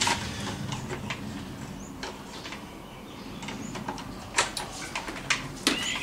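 Light scattered clicks and knocks of plastic being handled, as a nozzle tip is fitted to an electric pressure washer's spray wand, with a few sharper clicks in the last two seconds.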